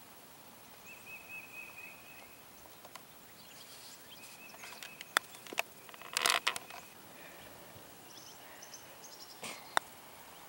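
Quiet outdoor ambience with birds chirping now and then. A sharp click a little past the middle, the putter striking the golf ball, followed by a brief rustle, and another faint click near the end.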